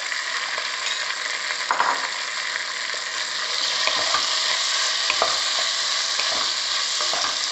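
Bottle gourd curry and fried prawns sizzling in hot oil in a nonstick pan while a spatula stirs and scrapes through them, with scattered light knocks of the spatula on the pan. The sizzle grows a little louder about halfway through.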